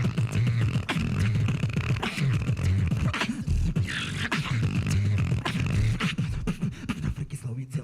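Beatboxers performing through microphones: a deep vocal bass line under rapid kick and snare clicks in a steady, driving beat.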